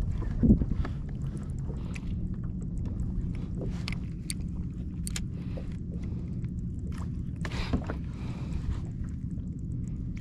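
Steady low rumble of wind and water around a fishing kayak, with scattered light clicks and knocks from the rod, reel and hull; a louder knock comes about half a second in and a short rush about two-thirds of the way through.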